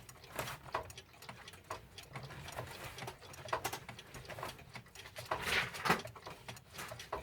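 Mechanical pendulum clocks ticking, the clicks falling unevenly. A louder handling noise comes about five and a half seconds in.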